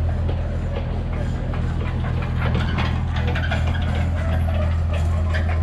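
Diesel engine of an excavator running steadily, a constant low hum with faint scattered higher sounds over it.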